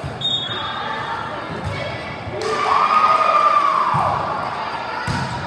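Volleyballs thudding on hands and the gym floor in a large echoing hall, a few separate hits, with a short shoe squeak near the start. About halfway through a person gives one long loud shout that drops in pitch as it ends.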